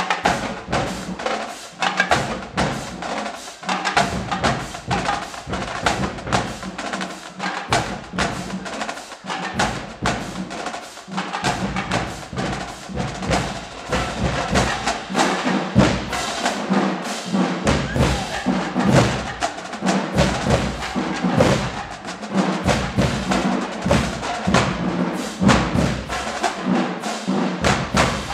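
Marching band drumline playing a cadence: snare and bass drums in a steady marching beat, with sharp stick clicks throughout.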